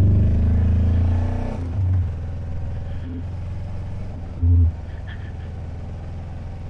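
Kawasaki Versys motorcycle engine revving up with rising pitch for the first second and a half, then running steadily at lower revs, with a short burst of throttle about four and a half seconds in.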